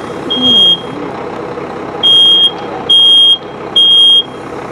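Smoke alarm sounding its three-beep evacuation pattern: a single high beep near the start ends one set, then after a pause comes a full set of three, over a steady background noise. It is going off in a room where a fire is burning.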